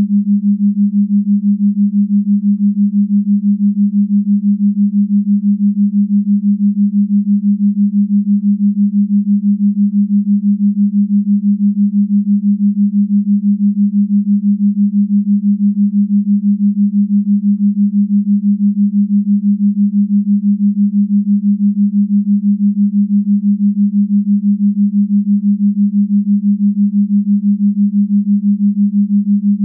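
Low electronic hum: a single steady tone whose loudness pulses quickly and evenly, without change.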